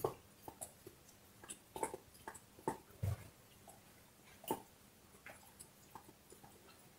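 Dog gnawing on a bone: irregular small cracks and clicks of teeth on bone, a few each second, the loudest about four and a half seconds in.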